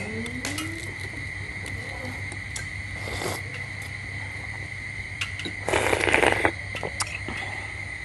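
Eating sounds of balut eggs being peeled and eaten: small clicks and crackles of eggshell, with two louder noisy bursts, a short one about three seconds in and a longer one around six seconds in. A steady faint high whine and a low hum run underneath.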